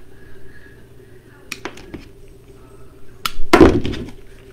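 Craft materials being handled on a work table: a few light clicks, then a louder knock with a brief rustle about three and a half seconds in.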